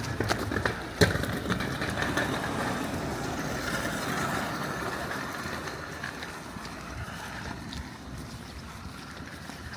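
A vehicle passes, its noise swelling and then fading away, with one sharp bang about a second in.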